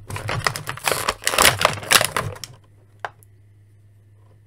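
Hard plastic being handled: a dense run of crackling clicks for about two and a half seconds, then a single click about three seconds in.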